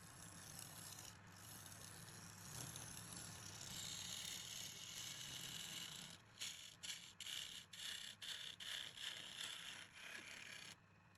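Wood lathe turning a rotting log, a tool cutting the spinning wood: a steady scraping hiss over a low motor hum. About halfway through it turns into a fast series of scrapes, about four a second, and it stops abruptly near the end.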